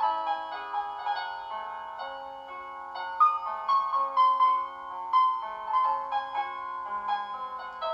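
Background piano music: a gentle melody of single sustained notes over a slow lower line.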